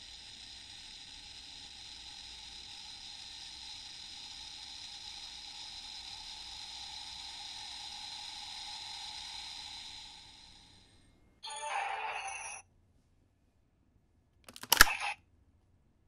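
CSM V Buckle toy belt playing its time-limit-ended steam sound effect through its speaker: a steady hiss that fades out after about ten seconds. Then comes a burst of another sound about a second long, and a brief, loud, sharp sound near the end.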